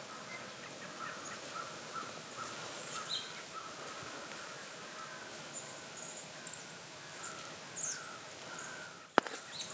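Birds calling over and over in short notes, with occasional higher chirps, and a single sharp click about nine seconds in.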